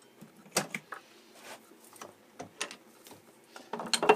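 Scattered metal clicks and clinks of a chuck key working the jaw screws of a lathe's four-jaw chuck while a workpiece is centred, with a louder clink near the end.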